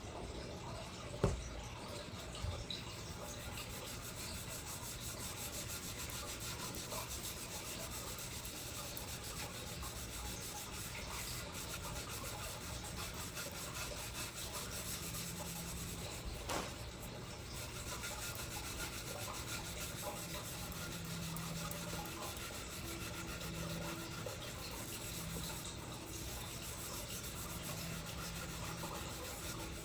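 Continuous hand scrubbing on the copper body of an old fire extinguisher, a steady rasping rub, with a sharp knock about a second in, a lighter one soon after, and another midway.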